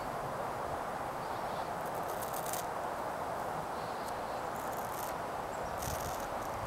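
Steady outdoor background hiss with no clear single source, broken by a few brief crackles about two, five and six seconds in.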